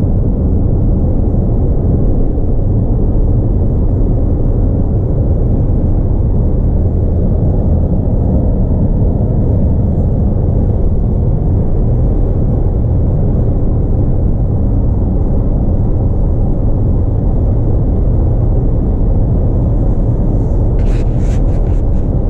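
Steady low road noise inside a car's cabin at highway speed: tyres on the pavement and the engine under wind against the body. A few light clicks near the end.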